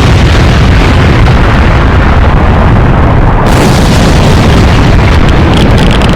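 Nuclear explosion sound effect: a long, very loud blast rumble, heavy in the bass and overdriven. About three and a half seconds in, a harsher hiss joins it.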